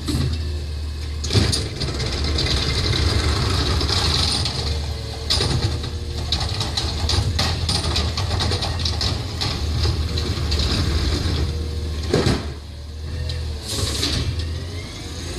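Autocar ACX garbage truck's natural-gas engine idling while its McNeilus ZR hydraulic side arm lifts a wheeled cart, tips it into the hopper and lowers it, with several sharp metal clanks as the cart is banged against the stops to empty it.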